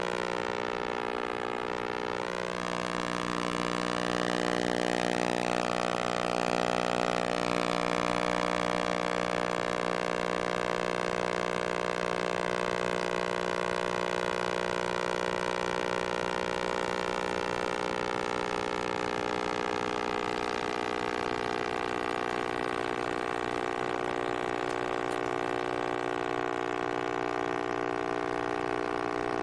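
Large microwave oven running, a steady electrical hum, with a higher whine that wavers during the first several seconds and then holds steady.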